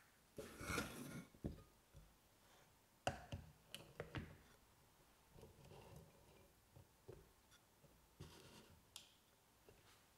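Quiet clicks and light knocks from a French press's plastic lid and plunger being fitted onto its glass carafe, with a brief rustle about half a second in.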